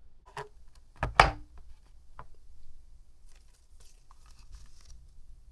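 Hard plastic knocks and clacks as an air purifier filter is handled during a filter swap, the loudest about a second in, followed by a couple of seconds of light crinkling and rustling.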